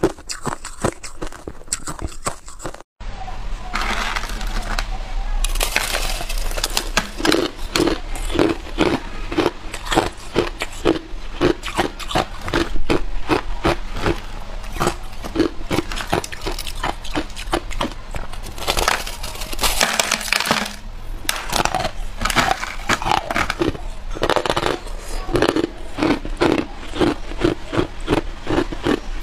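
Crushed ice being bitten and chewed close to a clip-on microphone: dense runs of crisp crunches and crackles, several chews a second. There is a brief dropout about three seconds in.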